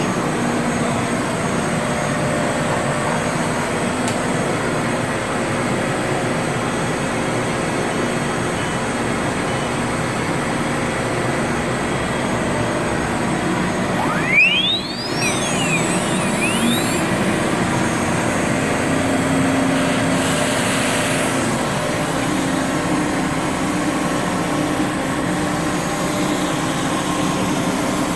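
Automatic-tool-change CNC router running with a steady machine noise and faint steady tones. About halfway through, a short knock is followed by the spindle's whine rising steeply in pitch as it speeds up, then fainter gliding tones.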